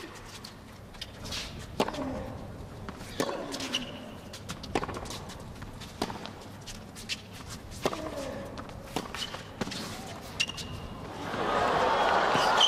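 Tennis rally: racket strikes on the ball about every one and a half seconds, most followed by a short player's grunt. About eleven seconds in, crowd noise swells up.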